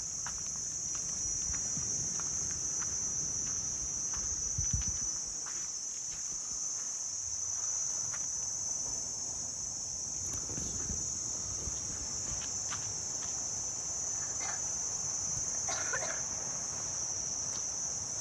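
Steady high-pitched drone of a tropical forest insect chorus, unbroken throughout, with faint footsteps on a muddy trail underneath.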